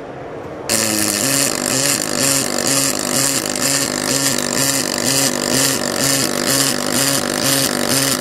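Fronius Fortis pulsed MIG welding arc in synchro-pulse mode, striking about a second in and then buzzing and crackling continuously. Its pitch warbles evenly back and forth between two levels, about one and a half times a second, as the synchro pulse switches between its two settings.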